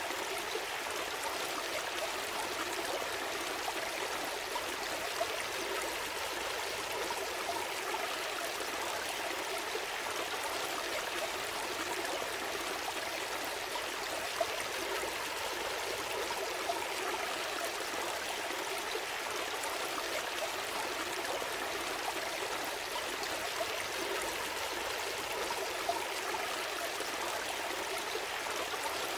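Gentle stream flowing: a steady babbling rush of water, with a few brief louder splashes.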